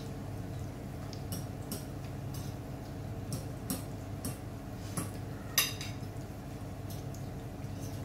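Breaded hammour (grouper) fillets shallow-frying in hot oil in a frying pan: scattered sharp pops and crackles of spitting oil, about ten of them, the loudest a little past halfway.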